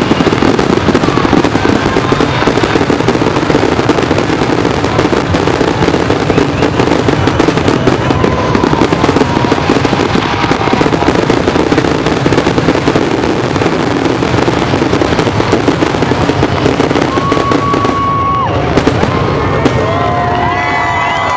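Aerial fireworks going off in a dense, continuous barrage of rapid bangs and crackles, with a few whistling tones near the end.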